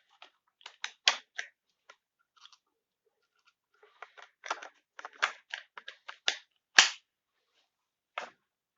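Handling noises from unboxing a chainsaw: an irregular series of sharp clicks, snaps and light knocks, the loudest about seven seconds in.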